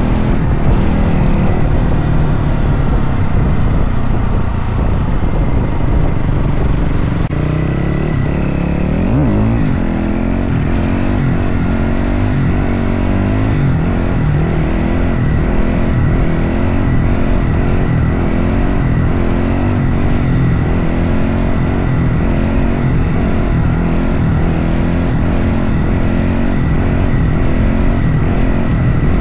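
Dirt bike engine running steadily while the bike is held in a long wheelie, the revs rising and dipping as the throttle is worked, with a quick swoop in pitch about nine seconds in.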